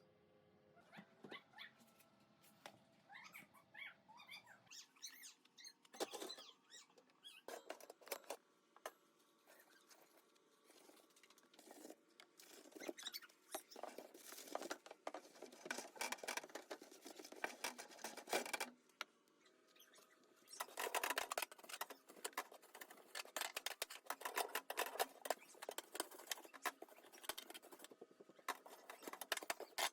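Fast, scratchy scrubbing and rubbing on a surface during cleaning, coming in bouts with a short pause about two-thirds of the way through.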